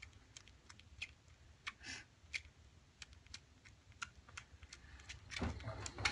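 Faint, irregular little clicks and smacks of six-day-old kittens suckling at their mother, with a louder shuffle of movement near the end.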